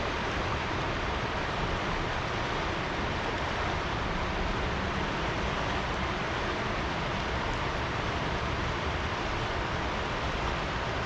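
River water rushing in a steady, even wash.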